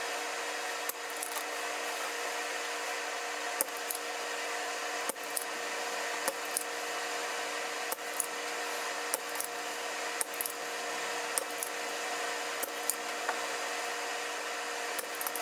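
Light, irregular clicks and taps of small tools working on a lithium battery pack's circuit board as the old terminal is removed, over a steady whirring hum of running workshop equipment.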